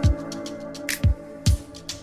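Background electronic music with a steady beat: a kick drum about twice a second under snare hits and held synth notes.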